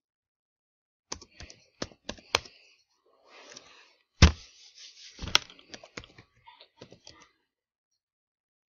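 Typing on a computer keyboard: an uneven run of key clicks, with one louder knock about four seconds in, stopping a little over a second before the end.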